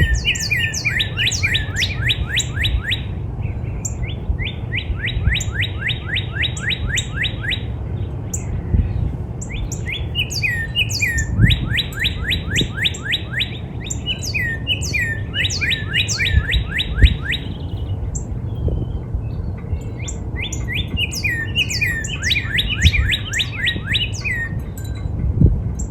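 Northern cardinal singing: phrases of quick, down-slurred whistled notes, about ten notes in two to three seconds, repeated four times with pauses between.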